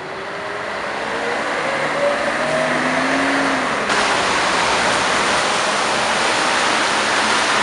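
Scania L113CRL bus with its Scania DSC11 diesel pulling away, its engine and transmission note climbing in pitch as it accelerates. About four seconds in, it cuts abruptly to a louder, steady rush of the bus driving past on the road.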